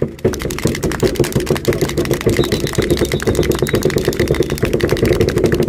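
Baseball stadium crowd cheering and clapping in a fast, dense clatter after a chant, cutting off abruptly near the end.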